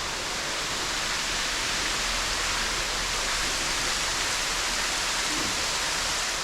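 Falling water rushing steadily in an even hiss, rising slightly in the middle.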